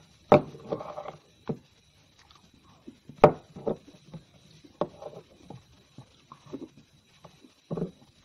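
Close-up eating sounds: chewing and mouth noises in short bursts, broken by several sharp clicks, the loudest about three seconds in.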